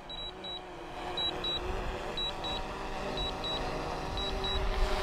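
Pairs of short high beeps about once a second from the DJI remote controller while the Mavic 2 Pro auto-lands. Under them the drone's propeller hum grows louder as it descends.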